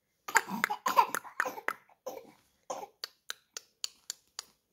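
A few short, breathy coughs, then a run of sharp clicks, about four a second.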